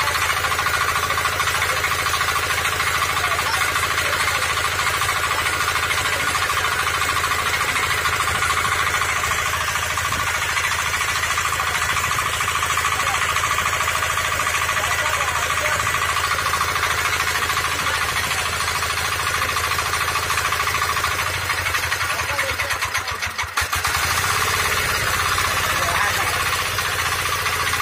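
Agrimart 9 HP single-cylinder diesel engine of a power tiller running steadily. Its sound drops briefly about three-quarters of the way through and then picks up again.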